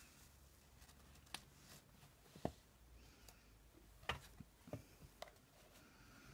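Near silence with about five faint clicks and taps from paper and needle being handled while a journal signature is sewn.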